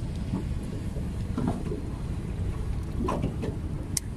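Steady low rumble of a small fishing boat's engine running, with a few faint knocks and a sharp click near the end.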